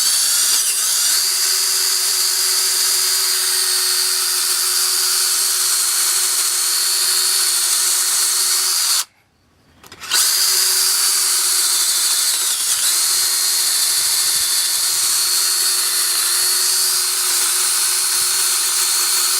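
Power drill running steadily while widening a drilled hole, in two long runs with a brief stop about nine seconds in.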